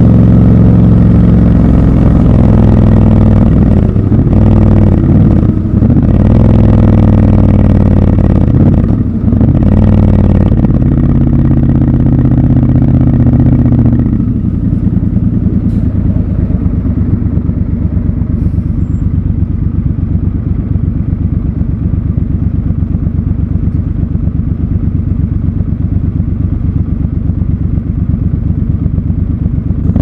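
Triumph Scrambler 1200 XC's 1200 cc parallel-twin engine, heard from the saddle, pulling through slow traffic with the throttle rolled on and off so the pitch dips and rises. About halfway it drops to a steady, evenly pulsing idle as the bike stops.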